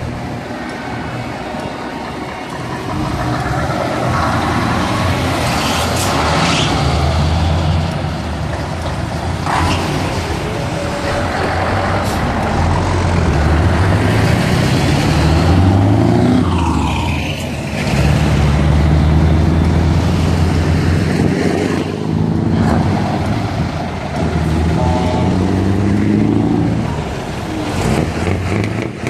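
Heavy trucks driving past one after another, their diesel engines pulling away and working up through the gears, the engine pitch rising and dropping again at each gear change.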